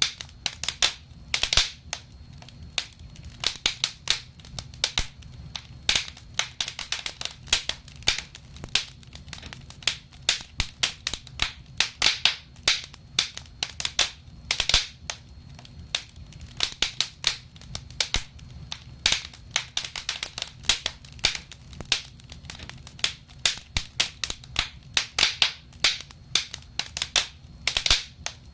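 Wood fire crackling in a fireplace: irregular sharp pops and snaps, often several a second, over a low steady rumble.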